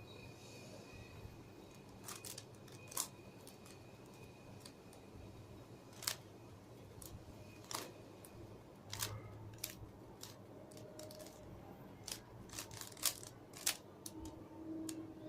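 Rubik's cube layers being turned by hand, sharp plastic clicks and clacks at irregular intervals as the cube is worked toward solving.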